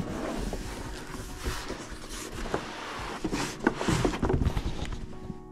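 Cardboard packaging being handled: the telescope box's lid is lifted and slid off, giving a rustling, scraping noise with a few light knocks.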